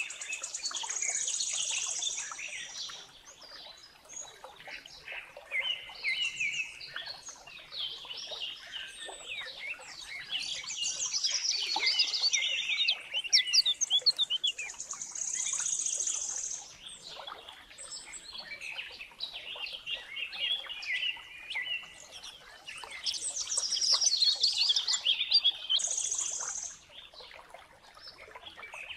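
Songbirds singing and chirping, several birds at once, with quick trilled phrases that come in louder bouts every few seconds.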